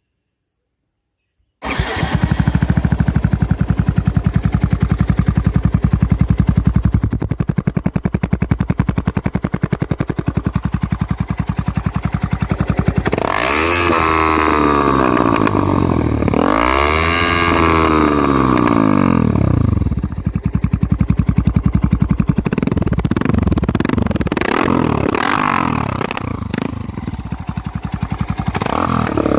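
Yamaha YZF motorcycle with a Malossi big-bore kit and full Leovince exhaust, idling after the sound cuts in suddenly about a second and a half in. It is revved up and back down twice around the middle, then given several shorter throttle blips near the end.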